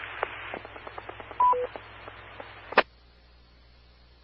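Hissing, crackling channel of the 444.825 MHz repeater, then the repeater's two-note courtesy beep, a high note followed by a lower one. A burst of squelch tail cuts off with a click a little over a second later, and the channel goes almost silent as the carrier drops.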